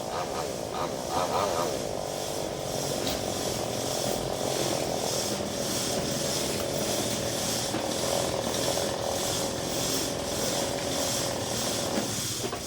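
Maestro chainsaw engine running with the chain cutting through a branch, a steady drone whose pitch wavers for the first couple of seconds, then settles and slowly sags under the load of the cut.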